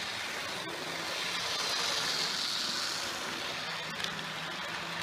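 Model railway train, a model Class 50 diesel locomotive hauling coaches, running along the track past the microphone: a steady rolling hiss of wheels and motor, with a faint steady hum. It swells as the train passes closest, and a few light clicks come near the end.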